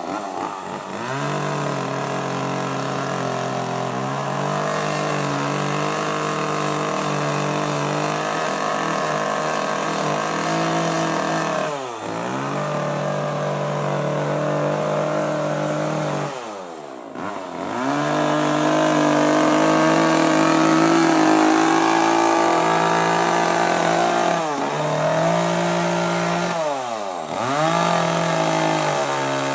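Chainsaw engine running at high revs during chainsaw carving. The throttle is let off and opened again several times, so the pitch drops and climbs back, and it runs loudest in a long stretch a little past the middle.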